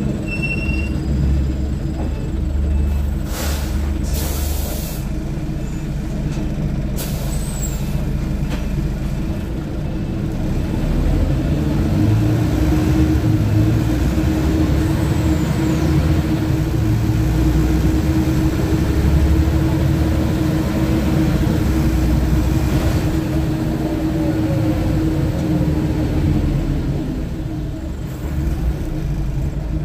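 Cabin sound of a Scania OmniTown single-deck bus: the diesel engine and drivetrain run steadily, with several sharp hisses of compressed air in the first eight seconds. The engine then grows louder as the bus pulls away, with a steady whine over the drone through the middle and a dip near the end.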